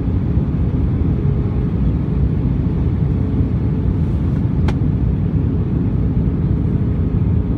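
Steady cabin noise inside an Airbus A320 on approach: a loud rumble of engines and airflow heard from a window seat over the wing, with a faint steady hum. One sharp click sounds a little past halfway through.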